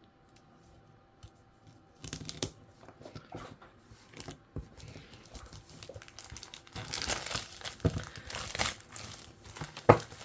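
Craft-kit packaging being opened by hand: crinkling, rustling and tearing that start about two seconds in and grow louder in the second half, with a sharp click near the end.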